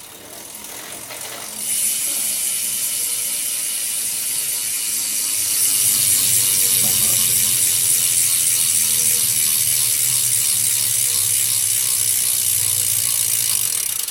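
Freewheel ratchet of a BMX rear hub (a Bicycle Union hub) buzzing as the rear wheel spins freely: a fast, continuous clicking of the pawls, really loud. It builds over the first couple of seconds, holds steady, and stops suddenly at the end.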